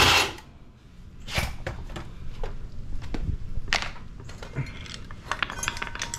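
Loose steel bolts and hand tools clinking and scraping on a concrete floor as they are handled, a run of scattered sharp clinks with a ringing metal clink near the end. A loud burst of noise cuts off just after the start.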